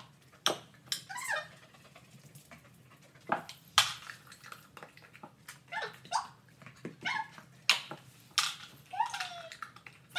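A border collie picking up toys and handling them around a plastic bowl: irregular sharp clacks and knocks, the loudest a little under four seconds in, with short gliding squeaks in between.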